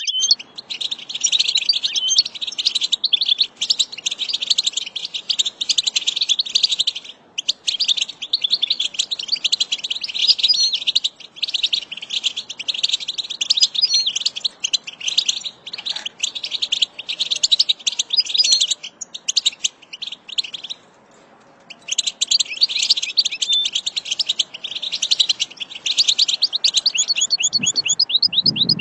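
European goldfinch singing: long runs of rapid, high notes with short breaks, and a pause of about a second about two-thirds of the way through.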